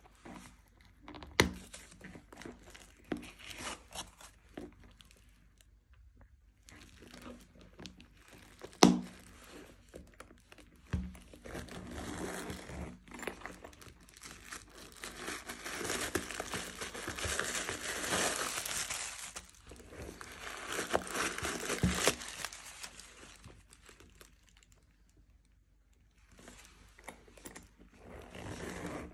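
Protective paper wrapping crinkling and tearing as hands pull it off the handle and out of a new saffiano leather bag. The crinkling is densest and loudest in the middle stretch, with a couple of sharp taps earlier on.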